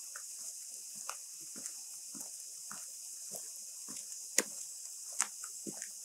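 Footsteps at a steady walking pace, about two a second, under the steady hiss of light rain. There are two sharper clicks about four and five seconds in.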